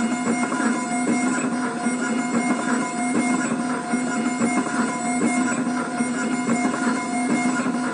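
CEREC milling unit grinding a ceramic crown block with its burs: a steady whir with several fixed tones over a continuous gritty grinding.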